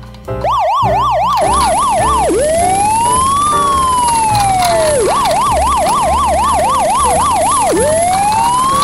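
Electronic siren alternating a fast yelp, about four up-and-down cycles a second, with slow wails that rise and fall over two to three seconds. It starts about half a second in.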